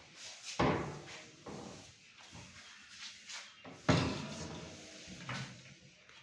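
Kitchen cabinet doors and drawers being shut: two sharp knocks, about half a second and four seconds in, with lighter knocks between.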